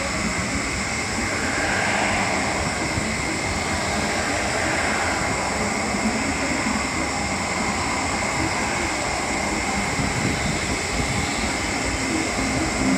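Boeing 737-400 freighter's CFM56-3 turbofan engines running at low taxi power as it rolls past: a steady jet whine with a thin high tone over a low rumble.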